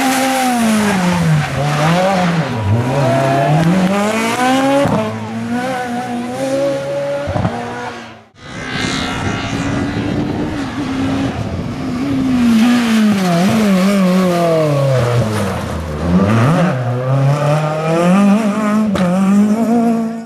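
Rally car engines revving hard, first a Peugeot 206 and then, after a break about 8 seconds in, another car. The engine pitch repeatedly drops as the car brakes and downshifts, then climbs again as it accelerates through the gears.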